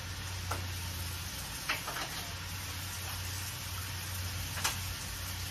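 Light clinks and knocks of kitchenware handled at a counter, about four short ones, the loudest a little over halfway through, over a steady low hum and hiss.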